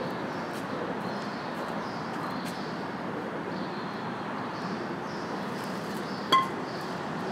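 Steady outdoor background noise, with one short, high ringing clink a little over six seconds in.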